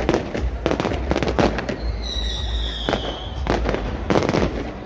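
Fireworks display: a rapid series of bangs and crackling bursts from exploding shells, a few each second. A high whistle, falling slightly, runs through the middle for about a second and a half.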